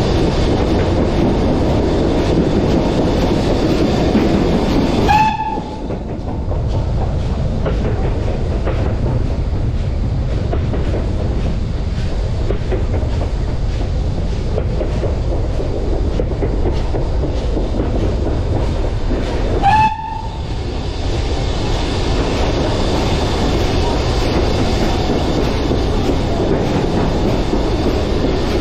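Steam train behind BR Standard Class 4 tank engine 80097 running on the line, a steady rumble of wheels on rail with some clickety-clack. It is louder inside a tunnel at the start, drops once out in the open about five seconds in, and builds again as the train enters the next tunnel about twenty seconds in. A brief whistle-like tone sounds at each of those two changes.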